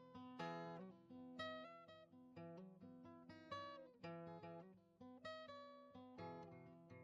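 Quiet background acoustic guitar music, plucked notes and chords struck about every half second.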